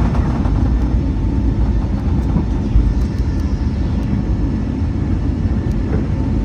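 Airbus A320neo airliner's engines, a steady, loud low rumble with faint steady tones above it.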